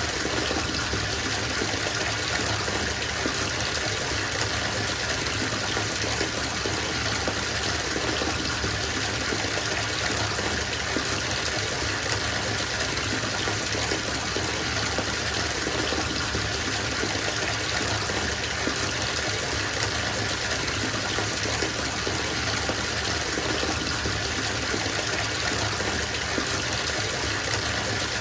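Water running from a tap into a bathtub as it fills, a steady, even gush.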